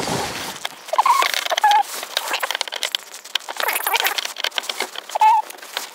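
Clicking and scratching of fingers working a plastic bumper fixing free from behind a car's rear wheel arch, with a few short squeaks.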